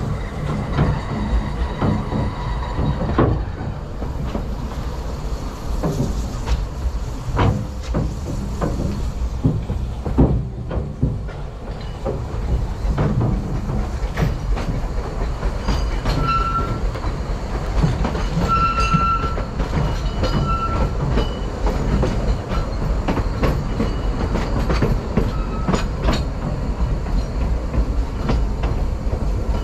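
Narrow-gauge steam train carriage running slowly: a steady rumble from the wheels, with frequent clicks and clunks over rail joints and points. A few short wheel squeals come in around the middle.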